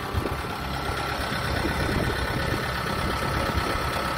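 Engine idling steadily, a low even rumble with a thin steady whine running through it.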